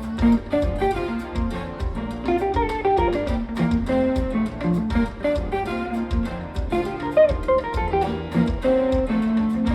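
Live Latin jazz band playing, with a plucked guitar picking out quick melody lines over bass and percussion keeping a steady beat.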